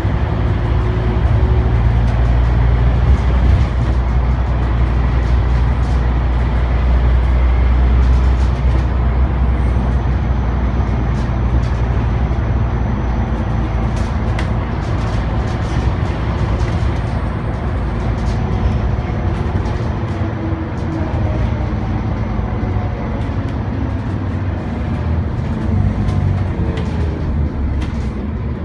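Scania OmniCity bus engine and drivetrain heard from inside the saloon while under way: a loud, deep running note that is strongest in roughly the first ten seconds, then eases, with short rattles from the bus body.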